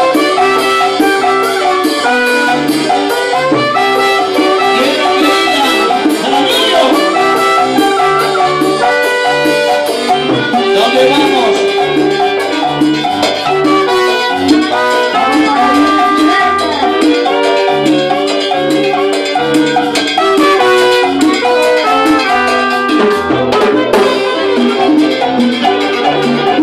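Live band playing a tune, a section of three saxophones playing the melody together over keyboard and a repeating bass line.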